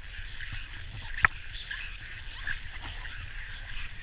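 Wind and handling rumble on a handheld action camera's microphone, with one sharp click about a second in.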